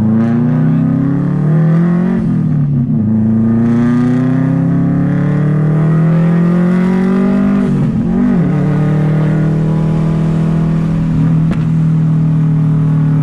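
Subaru WRX wagon's turbocharged 2.5-litre flat-four with an aftermarket exhaust, heard from inside the cabin, pulling through the gears. The engine note climbs, drops at a shift about two seconds in, climbs again and shifts once more near eight seconds in, then holds steady at cruise.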